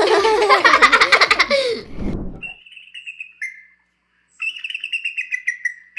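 Children laughing for about two seconds, then a recording of an eagle's call: two bouts of rapid, high-pitched piping notes that step down in pitch.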